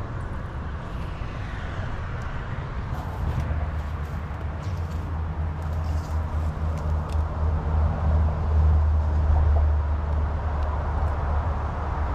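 Wind buffeting the microphone outdoors: a heavy, uneven low rumble that swells about two-thirds of the way through.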